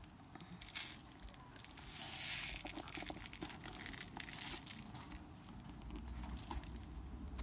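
Crinkling and rustling of craft materials being handled, with scattered small clicks and a denser stretch of rustling about two seconds in.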